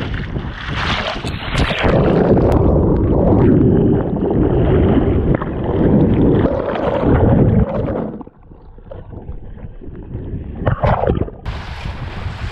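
Lake water rushing and splashing against the hull of a Sunfish sailboat right at the microphone, with a loud, muffled churning for several seconds as the hull-mounted camera dips into the water. The churning drops off suddenly. Near the end it gives way to a steady wind hiss on the microphone.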